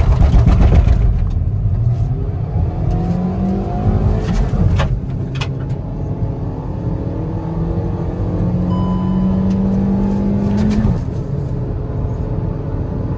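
Hyundai Aura petrol engine pulling hard through the gears in a 0–100 km/h acceleration run, heard inside the cabin. Loudest at the launch, the engine note climbs steadily and drops at gear changes about four seconds in and again near the end.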